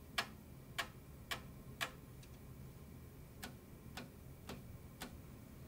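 Toothed GT2 drive belts of a CoreXY 3D printer being plucked by finger, each pluck a short sharp twang. There are four plucks in the first two seconds, then about five fainter ones spaced roughly half a second apart. The belts are plucked to compare their pitch and check that the two belts are evenly tensioned.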